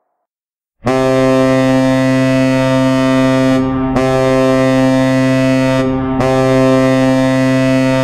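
Colorado Avalanche 2016 Stadium Series goal horn, a deep air horn, with no crowd noise. It starts suddenly about a second in and sounds one long steady blast, its upper tones briefly breaking twice.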